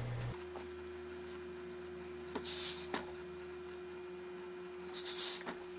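Two short hisses of steam from a tailor's hose-fed steam iron, about two and a half seconds apart, over a steady low hum.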